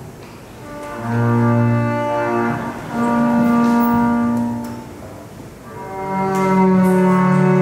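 Slow music of long held notes on a bowed low string instrument. The notes come in three swells, the first about a second in, another about three seconds in and the last about six seconds in, with a quieter dip between them.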